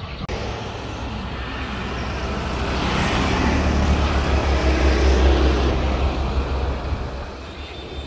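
A road vehicle passing close by on the highway: a rumble that builds to its loudest about four to five seconds in, then fades away.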